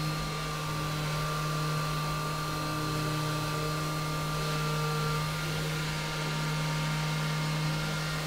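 Tormach 1100MX CNC mill spindle turning a 3-inch shell mill at 9000 RPM, face-milling a metal block: a steady low hum with a high whine over it, even in pitch throughout.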